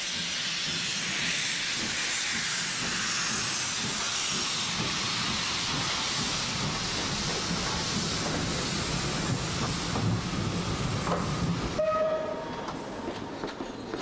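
Lancashire and Yorkshire Railway steam locomotive passing close with a loud hiss of escaping steam, followed by its coaches rumbling by. Near the end a short whistle sounds and the noise drops away.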